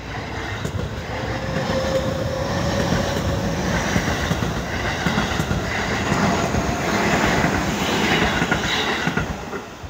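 Seibu 30000 series electric commuter train passing close by, its wheels clattering over the rail joints in a rumble that swells, holds for several seconds, then fades as the last cars go by near the end. A steady whine sounds through the first few seconds.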